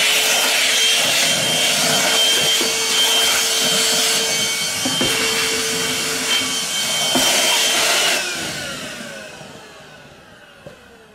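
HoLife HM036BW cordless handheld vacuum running at full suction while picking up spilled water, with a steady motor whine. About eight seconds in it is switched off, and the whine falls away as the motor spins down.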